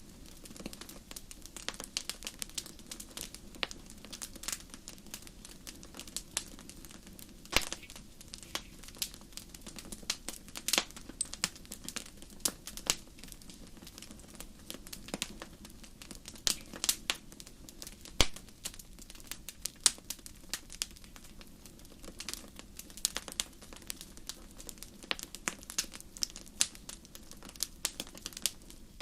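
Campfire burning with a continuous irregular crackle of sharp pops and snaps over a low steady hiss.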